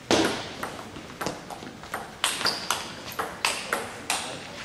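Table tennis rally: the ball clicking off the rackets and bouncing on the table in quick alternation, about two to three hits a second, echoing in a large sports hall.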